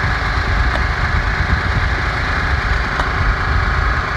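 Small gas engine of a hydraulic log splitter running steadily, with two faint ticks about a second and three seconds in.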